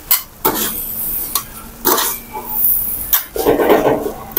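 Steel wok ladles clinking and scraping against a steel wok as fried rice is tossed and stirred: a few sharp clinks in the first two seconds, then a longer scrape about three seconds in, over a steady low hum.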